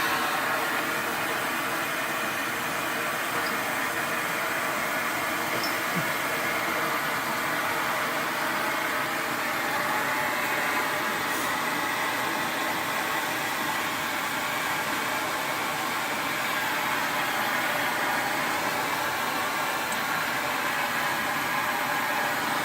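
Vacuum cleaner motor running steadily with an even whooshing hum.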